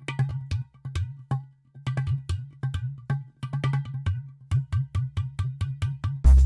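Background music: a sparse passage of quick clicking percussion hits over a low held bass note, with fuller music coming back in right at the end.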